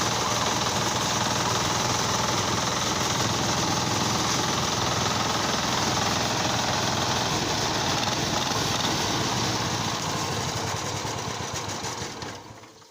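A small engine running steadily at a constant speed with a fast, even pulse, fading away near the end.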